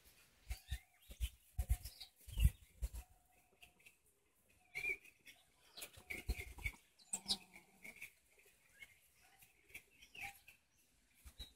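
Chickens clucking softly in short, scattered calls, with brief low knocks in between, the loudest about two and a half seconds in.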